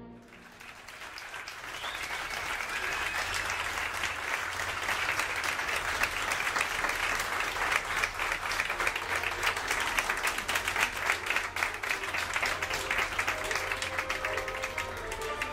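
Audience clapping: applause swells over the first couple of seconds and then holds steady.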